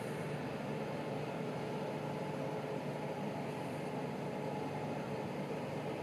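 Zephir LOK 20.300 road-rail shunter's engine running steadily as it slowly hauls a rake of coaches: an even hum with a faint steady whine.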